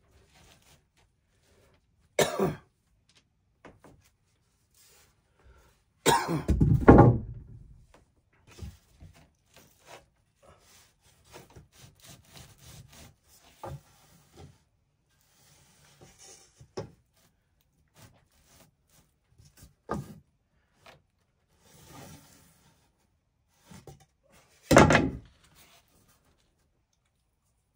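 Wooden boards knocked and set down on a plywood floor: four loud knocks spread through, the heaviest a longer clatter about six seconds in, with quiet scraping and shuffling of lumber between.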